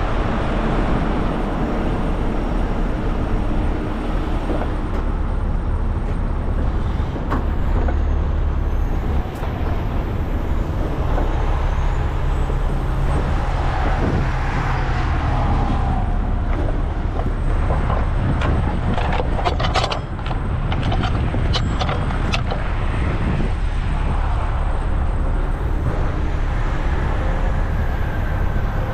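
A heavy tow truck's diesel engine running steadily at idle. About two-thirds of the way through comes a run of sharp clanks and rattles as the tow chains and hooks on the wrecker's underlift are handled.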